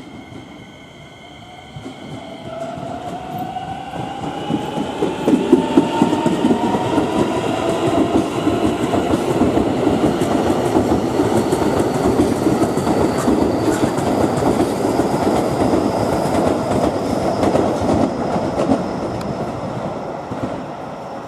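Keisei electric train passing at close range. Its traction motors give a whine that rises in pitch over the first few seconds as the train gathers speed, and the wheels clack over the rail joints in a loud rumble that builds, holds for over ten seconds, then fades near the end.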